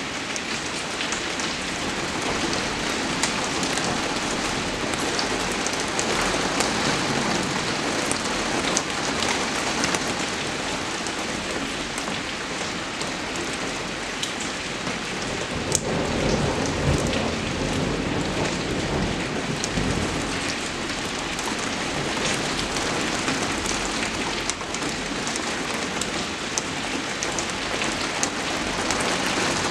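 Steady rain, an even hiss dotted with the sharp ticks of individual drops. About halfway through, a low rumble swells and fades.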